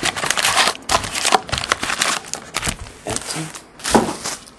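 Foil hockey card packs crinkling and a cardboard hobby box rustling as the packs are handled and pulled out, with a louder thump about four seconds in as the stack is set down.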